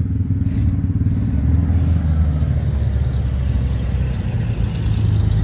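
A motor vehicle's engine running steadily at low revs, a low rumble that grows slightly louder in the middle.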